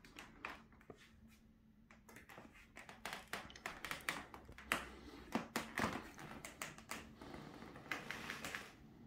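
Handling noise: a run of light clicks and taps, thickest in the middle, with a short rustle near the end, over a faint steady room hum.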